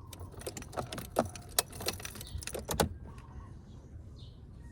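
Sharp clicks and light knocks of parts and tools being handled, several in the first three seconds, then quieter, as the brake light switch is being put back.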